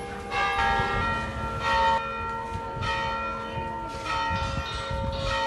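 Church bells ringing: bells of different pitches struck one after another, a little more than one stroke a second, each tone ringing on under the next.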